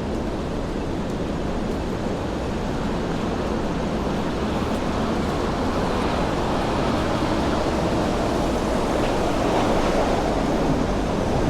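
Steady noise of city street traffic that slowly grows louder.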